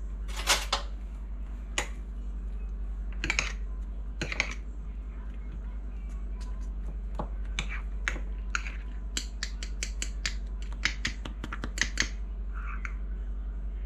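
Metal spoon stirring thick cream cheese icing in a glass mason jar: irregular sharp clicks and taps of the spoon against the glass, sparse at first and coming thicker in the second half.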